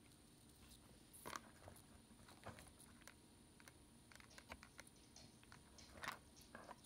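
Near silence, broken by scattered faint clicks and ticks, the two clearest about a second in and about six seconds in, over a faint steady high tone.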